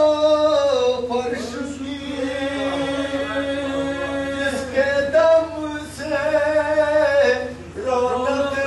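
A man chanting a devotional salaam unaccompanied, holding long, wavering melodic notes with brief breaths between phrases.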